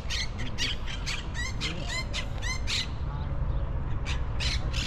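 Birds squawking in a quick run of short, harsh calls, about three a second, pausing around three seconds in and starting again near the end, over a steady low rumble.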